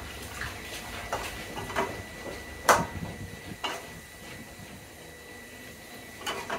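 A metal spatula scraping and knocking against a wok as small pieces of sweet pork are stir-fried in oil: a few separate scrapes and knocks, the loudest about two and a half seconds in.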